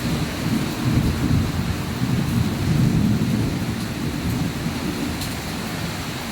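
Rain falling steadily in a thunderstorm, with a low rumble of thunder that is heaviest in the first few seconds.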